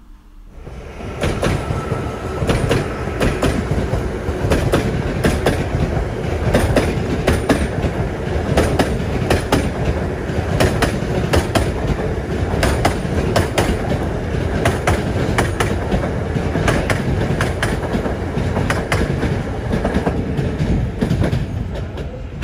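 Electric passenger train, a Hyundai Intercity+ trainset, running past close by: its wheels clatter over rail joints and switches in a dense run of clicks, several a second, over a steady rumble.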